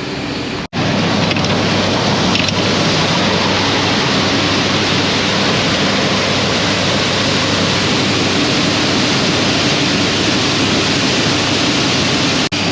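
Massey Ferguson 1155 tractor's Perkins V8 diesel running at a steady speed under a loud, even rushing noise. It cuts out briefly just under a second in.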